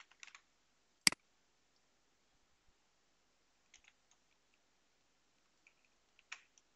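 Computer mouse and keyboard clicks: one sharp click about a second in, then a few faint clicks, as code is copied and pasted into an editor.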